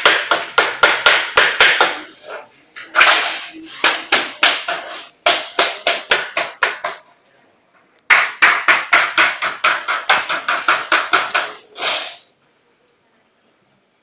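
Rapid mallet blows on a galvanized steel sheet being bent over a metal edge, about four or five strikes a second. The blows come in three runs with short pauses and stop about twelve seconds in.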